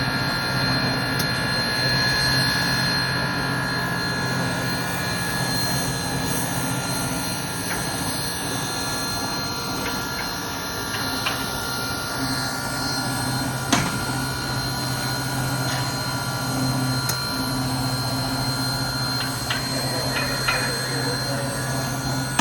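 Steady machinery drone with a constant low hum and a thin high whine, broken by a sharp click about fourteen seconds in.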